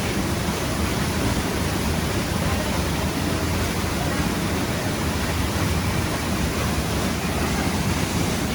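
Waterfall's water rushing, a steady even noise without breaks.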